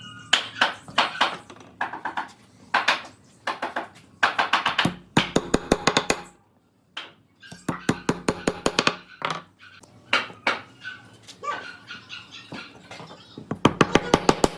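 Rapid sharp knocks of a tool striking wood, in quick runs of several blows a second, broken by a brief silence about seven seconds in.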